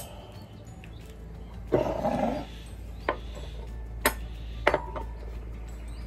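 Cutlery clicking against a plate three times, one clink ringing briefly, over a steady low hum, with a short rough noise about two seconds in.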